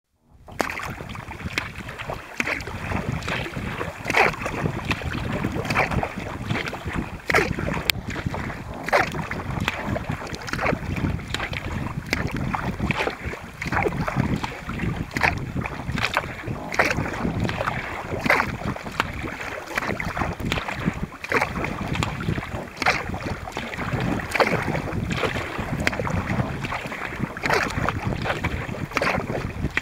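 Sea kayak being paddled: paddle blades splash into the water in a steady rhythm of about one stroke a second. Underneath is the steady rush of water along the hull and wind on the microphone.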